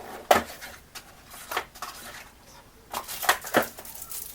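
Light metallic clicks and clinks, one shortly after the start, another about a second later and a quick run of three near the end, as a thin metal I/O shield is handled and pressed into a steel PC case.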